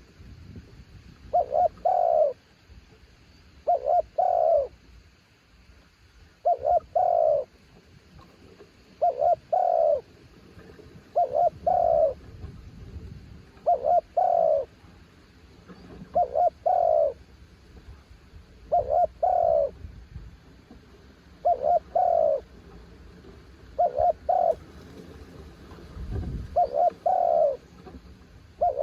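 Spotted dove cooing its repeated song, a phrase of two short notes and a longer one, about every two and a half seconds.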